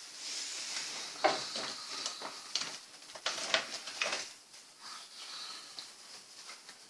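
Faint rustling and handling noise in a small room, with a few scattered soft clicks and knocks and no music playing.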